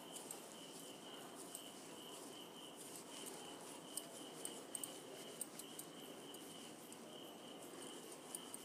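Faint sounds of hands pressing and patting a soft potato, poha and soya-chunk cutlet mixture into patties, with a few light clicks about halfway through. A faint, steady high-pitched pulsing chirp runs underneath.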